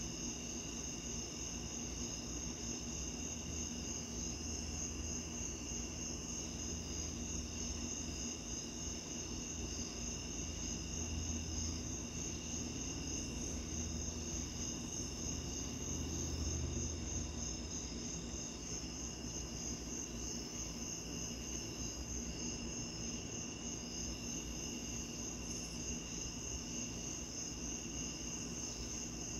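Night insects trilling steadily in several overlapping pitches, the highest a fast, even pulsing, over a low, steady rush.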